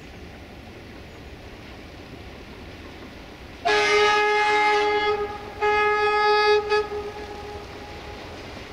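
Two blasts of a diesel locomotive's air horn as it approaches. The first lasts about a second and a half; after a short break, the second lasts about a second.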